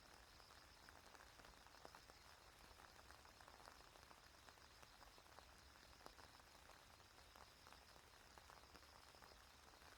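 Faint rain: scattered drops ticking irregularly on nearby surfaces, over a steady high insect chirring.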